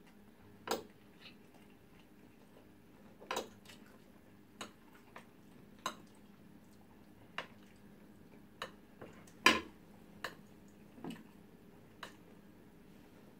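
Eating at a table: about ten scattered, sharp clicks of a metal fork and spoon against a plate of rice and stew, the loudest a little past halfway.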